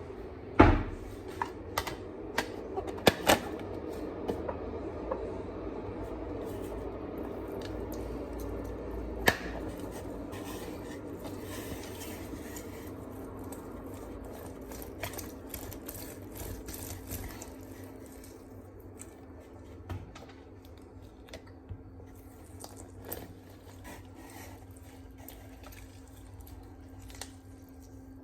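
Kitchen handling sounds: a few sharp clinks of dishware or utensils, mostly in the first ten seconds, with liquid being handled. A faint steady hum comes in during the second half.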